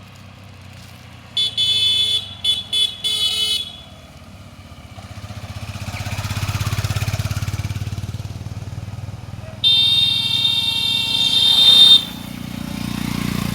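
Vehicle horn honking: a quick series of short beeps, then a long blast of about two seconds near the end, which is the loudest sound. In between, a passing vehicle's engine rumble swells and fades.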